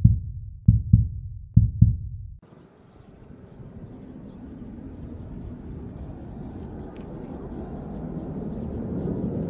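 Low double thumps like a heartbeat, three pairs, stopping abruptly about two and a half seconds in. Then the steady rumble of the Airbus A220-300's Pratt & Whitney PW1500G geared turbofans on final approach, growing gradually louder as the jet comes in to land.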